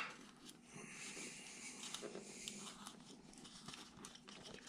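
Carving knife cutting and shaving wood by hand: faint, scattered little scrapes and clicks, with one sharper click at the start.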